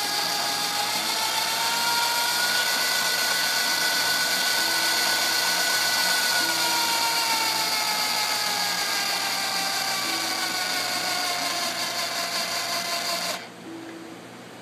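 DC motor, fitted in place of the dead AC motor in an antenna elevation rotator, running the rotator's gear drive with a steady whine. The pitch rises slightly at first, then sinks slowly as it runs, and the motor stops abruptly about 13 seconds in.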